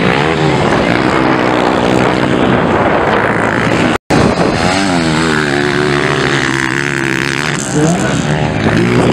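Motocross bikes' engines revving up and down as they ride the dirt track, their pitch rising and falling over and over. The sound drops out for an instant at a cut about four seconds in.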